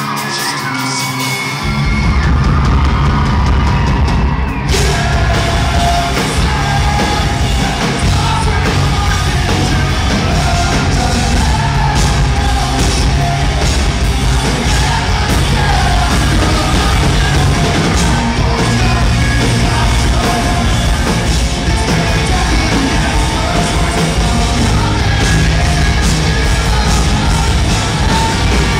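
Live rock band playing loud, with a male lead vocal sung and yelled into the microphone over electric guitar. The low end of the band comes in fully about a second and a half in.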